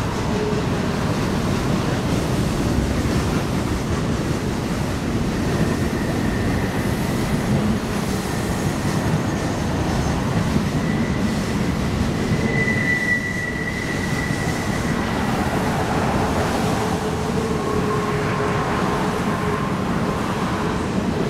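Freight cars of a loaded grain train (covered hoppers) rolling past with a steady rumble of wheels on rail. Wheel flanges squeal over it: a thin high squeal that swells about halfway through, then lower squeals near the end.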